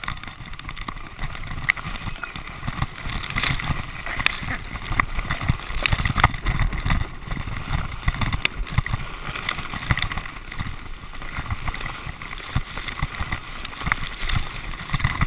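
Sledge sliding fast downhill over snow and patchy grass, a steady scraping rumble broken by frequent bumps and knocks as it runs over uneven ground.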